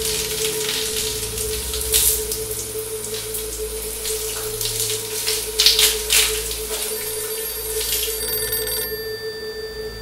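Shower water running and splashing, with a steady tone underneath. About seven seconds in a telephone starts ringing, and it carries on alone once the water sound falls away near the end.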